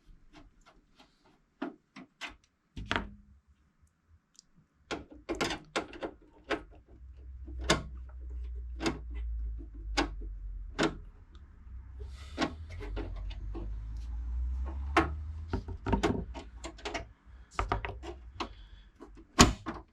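Clicks, taps and knocks of a small-form-factor desktop PC case being handled as its two cover screws are undone and the cover is slid off. A low rumble runs under the clicks from about three seconds in until near the end.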